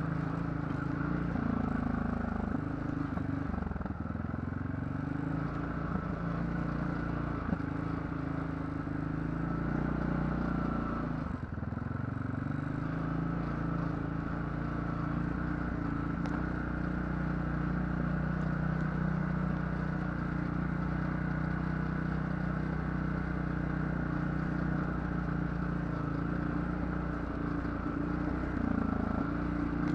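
ATV engine running while riding a trail. Its pitch dips and climbs again a few times as the throttle is eased off and opened back up.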